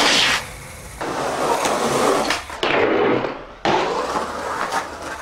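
Skateboard wheels rolling on rough concrete, with a sharp clack of the board hitting the ground about three and a half seconds in before it rolls on.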